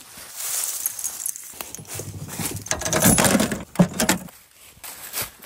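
Rustling and metal clinking as orange rope dog leads with their clips are gathered up and handled beside an aluminium diamond-plate dog box, in an irregular run of clatter that is loudest near the end before dropping away.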